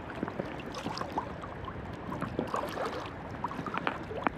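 Sea water sloshing and splashing irregularly around a swimmer in the shallows, with many small splashes and drips.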